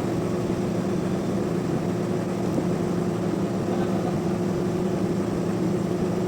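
Sawmill machinery running with a steady hum at an even pitch.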